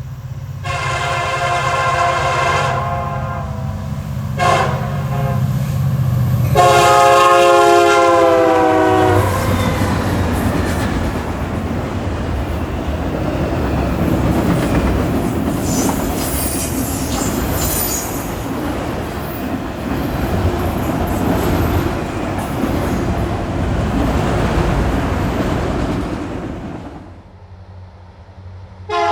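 Nathan Airchime K3LA three-chime locomotive air horn sounding long, short, long over a diesel engine hum, the last blast dropping in pitch as the locomotive passes. A freight train then rolls by for about 17 seconds, its wheels clattering over the rail joints. Another K3LA horn blast starts right at the end.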